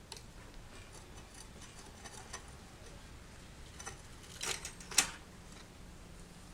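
Irregular light clicks and taps of tools and bicycle parts being handled during a repair, with a few sharper clacks about four and a half seconds in, the loudest at about five seconds.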